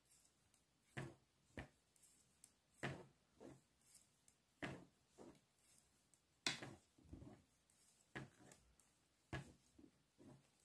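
Knitting needles clicking and tapping faintly and irregularly, one or two small clicks a second, as a row is purled.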